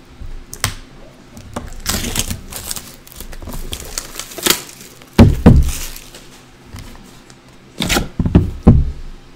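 Hands handling a shrink-wrapped cardboard trading-card box: scattered clicks and rustles of the plastic wrap, with a few dull thumps of the box about five seconds in and again near the end.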